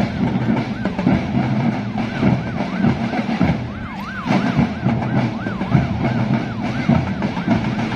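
An electronic siren yelping, its pitch rising and falling about two to three times a second with a short break midway, over the drums of a marching band.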